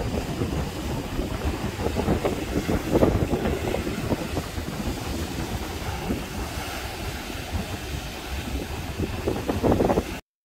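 Sea waves washing in and breaking against shoreline rocks, in irregular surges, with wind rumbling on the microphone. The sound cuts off abruptly just before the end.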